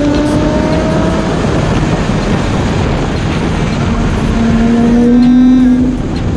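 A car engine pulling hard through the bends, its note climbing at the start and again about two-thirds of the way in, then falling away just before the end as the throttle is lifted, over a steady rush of wind and road noise.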